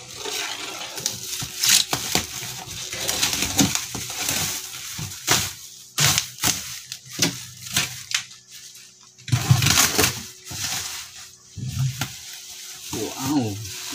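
Utility knife slicing through plastic stretch wrap, then the film being torn and pulled off a cardboard-covered plywood crate, with loud, irregular crinkling and crackling. A couple of low thuds come from handling the crate.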